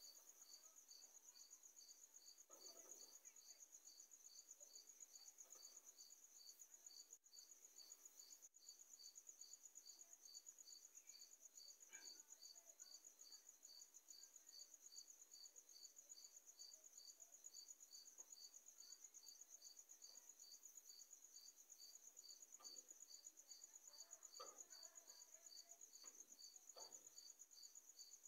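Faint insect song: a continuous high-pitched trill with a second insect chirping evenly about two to three times a second.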